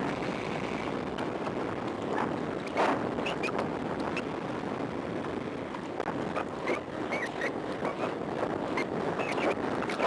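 Wind buffeting the microphone of a sunglasses camera on a mountain biker riding fast downhill on pavement, a steady rushing noise. A few short high chirps come through now and then.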